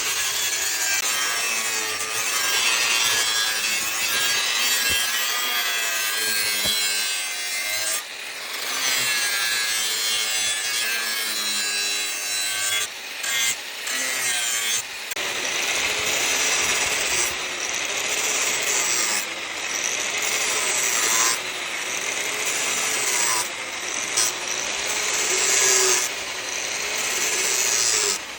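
Continuous scraping and sawing noise of a tool working material, going in repeated strokes with a pitch that rises and falls, and turning coarser about halfway through.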